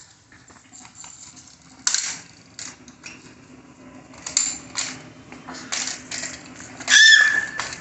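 Small plastic toys clicking and clattering on a hard tiled floor as a crawling baby plays with them, in a string of separate knocks. About seven seconds in comes a loud, short, high-pitched squeal.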